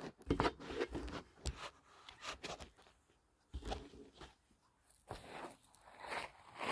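Irregular scratching and rustling in short bursts with pauses, the sound of a leg being scratched.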